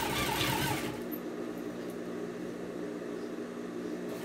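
Domestic sewing machine running a straight seam for about a second at the start, then stopping, leaving a steady low hum.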